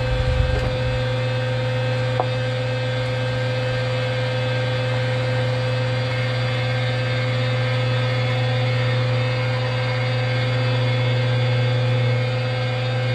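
A motor or engine running steadily at constant speed, a low even hum with a single sharp click about two seconds in.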